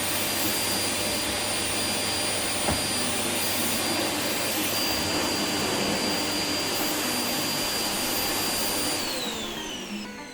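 Household vacuum cleaner running steadily with a high whine, then switched off about nine seconds in, its motor winding down with falling pitch.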